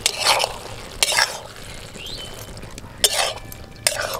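A metal spatula scraping and stirring a thick cabbage and potato curry in a metal kadai, four short scrapes about a second apart.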